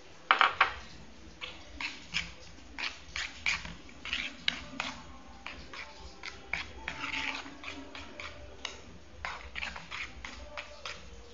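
Metal spoon scraping and knocking against an aluminium pan while stirring flour into a thick batter: a string of short scrapes and clinks, the loudest a quick cluster of knocks just after the start.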